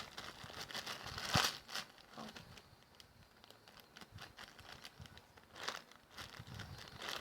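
Plastic crinkling and rustling in irregular bursts, the loudest about a second and a half in.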